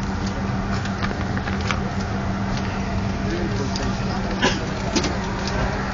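Steady airliner cabin noise: ventilation hum with one steady low tone, under a faint murmur of passengers' voices. A couple of sharp clicks late on.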